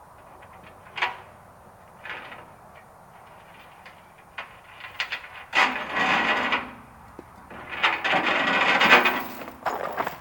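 Wood cracking and scraping as tree branches are worked loose: two short knocks, then two rough, crackling bursts of a second or two each in the second half, the later one the loudest.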